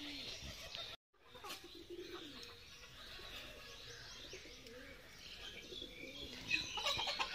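Small birds chirping repeatedly, with pigeons cooing now and then. The sound cuts out briefly about a second in, and a few clicks come near the end.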